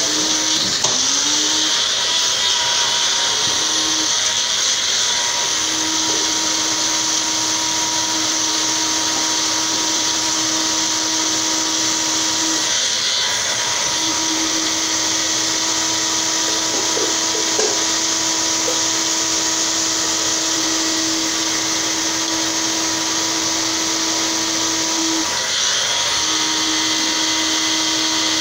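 Electric blender running steadily, grinding dry cornbread stuffing into crumbs; its hum breaks off briefly a few times.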